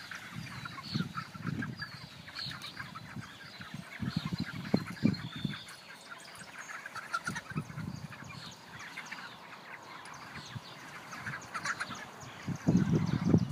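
Flock of six-week-old broiler chickens peeping and clucking continuously as they walk along inside a pasture pen that is being pulled across the grass. Irregular low rumbles and knocks come from the moving pen, loudest about five seconds in and near the end.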